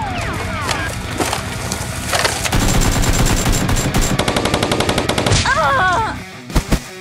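Rapid automatic gunfire. A dense run of evenly spaced shots starts about two and a half seconds in and stops suddenly about two seconds later. A short wavering cry and two sharp bangs follow near the end.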